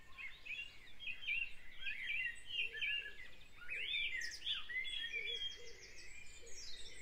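Birds chirping, a run of quick repeated chirps with other calls overlapping.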